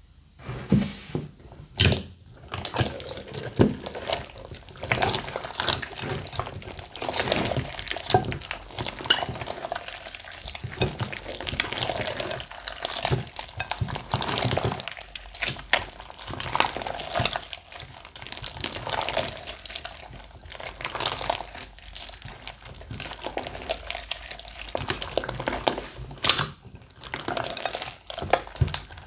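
Slime being kneaded and stretched by hand, giving dense, irregular wet clicks and squelches with no real pause.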